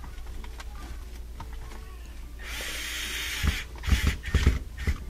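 Cordless drill-driver running for about a second in the middle, driving in a screw that holds the dishwasher's circulation motor to the sump, followed by a string of loud knocks and bumps.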